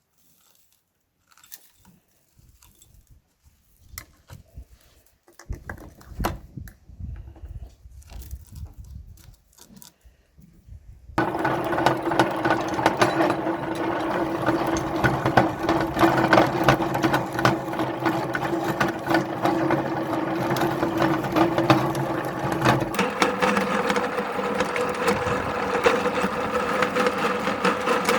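Scattered clicks and knocks of handling, then an electric meat grinder's motor switches on abruptly and runs steadily with a humming tone and rapid clicking, grinding lollipops. A few seconds before the end its hum shifts to a higher tone.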